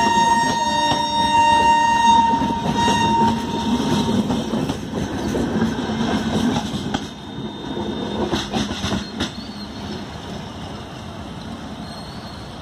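LHB passenger coaches rolling past at low speed on departure: a steady rumble with several high-pitched metallic squeals in the first few seconds. A few sharp clacks of the last coach's wheels over the rail joints come around eight seconds in, and the sound then fades as the train moves away.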